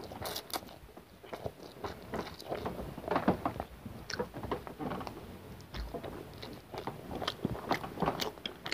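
Close-miked mouth sounds of a person eating egg noodles: strands drawn into the mouth and chewed, with many short, irregular wet smacks and clicks.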